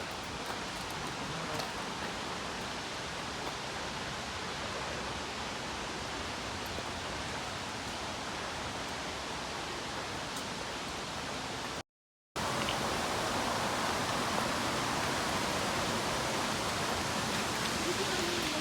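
Steady rushing of a waterfall's falling water. It cuts out for a moment about twelve seconds in, then resumes a little louder.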